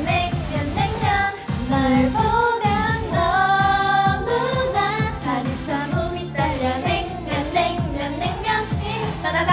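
Upbeat K-pop song with a high voice singing the melody, holding some notes, over a steady beat.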